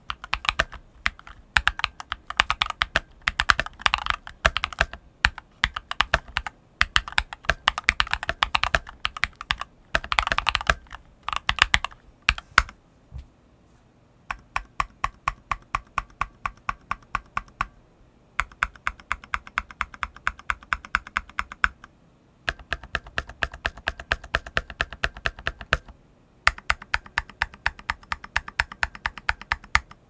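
Mechanical keyboard sound test: a fully modded Klim Shift / CIY X79 with Douyu Orange 50 g tactile switches and MG Dawn SA-profile keycaps. Fast two-handed typing runs for about the first half. Then keys are pressed one after another in an even rhythm, several a second, in runs of a few seconds with short pauses between.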